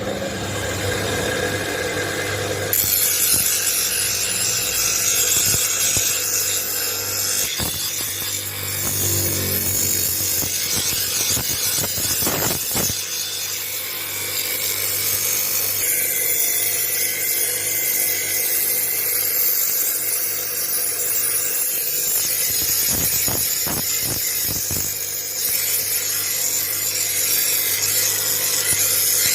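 Power tool abrading metal: a steady, harsh hiss of grinding or sanding over a low motor hum, with a few brief knocks as the work shifts.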